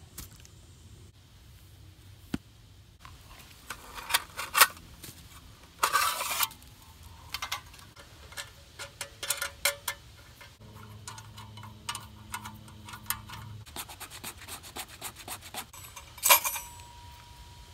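Metal clicks, clinks and scrapes of a folding steel Hot Ash camp stove being unfolded and its panels slotted together, with rustling as bark and sticks are pushed into its firebox.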